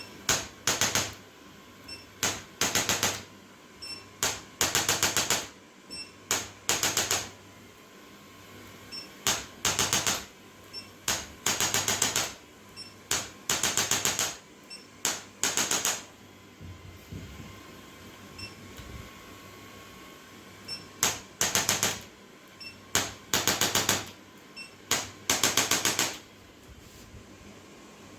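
Handheld electric percussion instrument used on the spine in chiropractic treatment, firing very rapid, even taps in short bursts of under a second, often two bursts close together, with pauses of a second or two between them.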